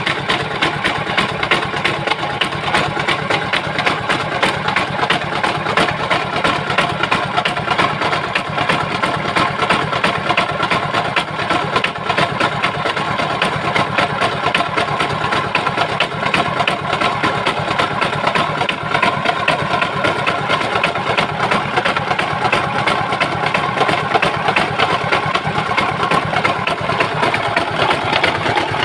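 Old West German-built Hatz 790 single-cylinder diesel engine running steadily at an even speed, a fast, regular stream of firing beats.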